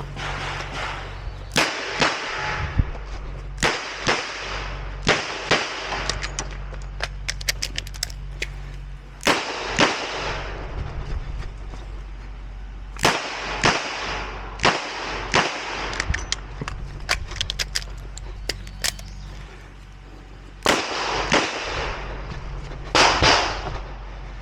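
A .38 Special revolver (Ruger GP100 Match Champion) firing a stage string: sharp shots with a ringing echo, in groups of a few, with pauses between the groups. Small light clicks fill some of the pauses.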